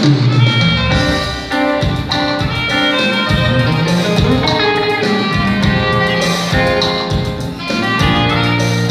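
Live band music led by a guitar, played at a sound check, with a steady beat underneath.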